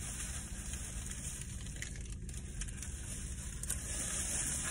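Steady low rumble and hiss inside a parked car's cabin, with a few faint small clicks.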